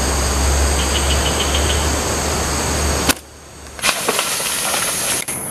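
Steady outdoor background noise with a low rumble, cutting off suddenly with a click about three seconds in; after a short lull, quieter outdoor noise with a few faint clicks.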